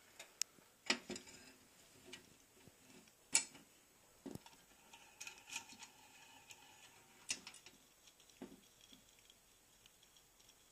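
Scattered light metal clicks and clinks of a hand-made riveting tool being handled and fitted onto a pressed-steel toy truck bed, with a sharper knock about three seconds in.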